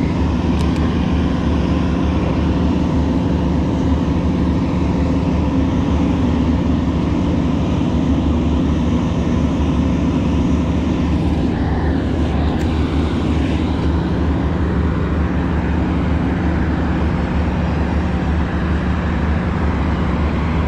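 An engine running steadily at constant speed, loud and close, with a rushing noise over its low hum; it cuts in abruptly at the start.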